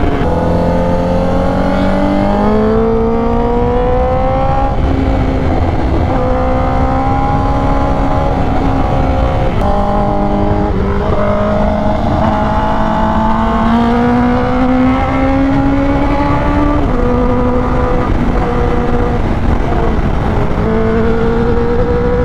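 Honda CBR1000RR-R Fireblade SP's inline-four, fitted with an SC Project exhaust and cat delete, heard from onboard under way. The engine note climbs with the throttle and drops back at each gear change, several times, over a steady rush of wind.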